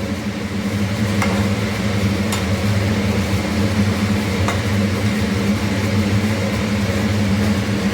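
Steady low mechanical hum of a running motor, with about three faint light clicks.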